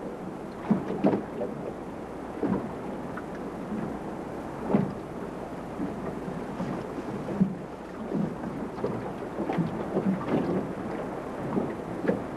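Water lapping and slapping against the hull of a small drifting boat: irregular low thumps over a steady wash.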